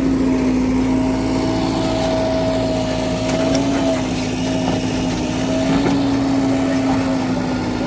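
Heavy diesel engine running steadily, its pitch holding nearly constant.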